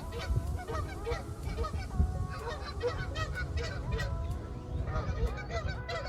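A flock of geese honking, many short calls overlapping and repeating, over a low steady rumble.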